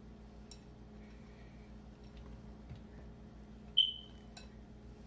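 Faint soft handling sounds of diced boiled potato being pushed by hand off a plate into a wooden bowl, over a low steady hum. About four seconds in comes a single sharp clink with a short ring, then a lighter tick.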